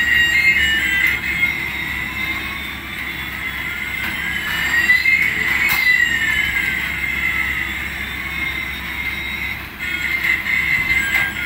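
Electronic sound effect of a battery-powered light-up toy airliner: a hissing jet whine with two long glides, one rising and one falling, that cross about halfway through with a click. Short electronic beeps of a toy tune at the start and again near the end.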